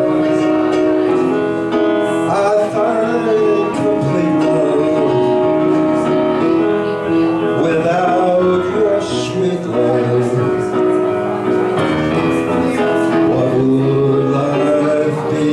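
A man singing into a handheld microphone, amplified, with electric keyboard accompaniment playing sustained chords; the vocal holds long notes.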